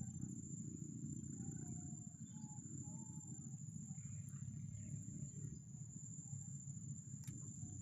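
Outdoor ambience: a steady low rumble under a continuous high-pitched insect drone, with a few faint short chirping calls in the first half.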